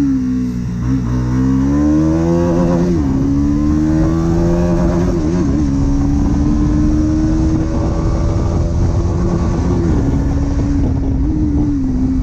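Bajaj Pulsar NS200's stock single-cylinder engine and exhaust under way. Its note climbs slowly and drops briefly about five times as the gears are changed.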